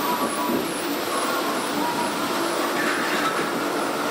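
Theme-park ride vehicle running through a tunnel: a steady rumbling noise with a few faint held tones over it.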